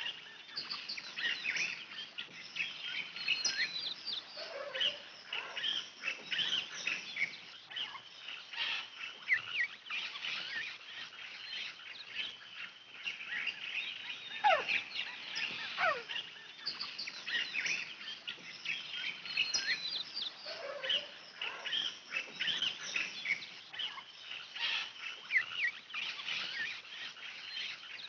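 Many birds chirping and calling at once in a dense, continuous chorus. About halfway through, two separate whistled calls fall in pitch.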